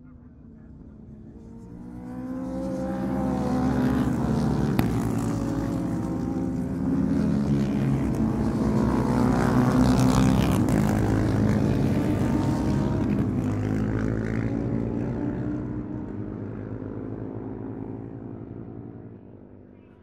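A pack of classic racing motorcycles passing at speed, several engines running together at high revs. The sound swells about two seconds in, stays loud through the middle and fades away near the end.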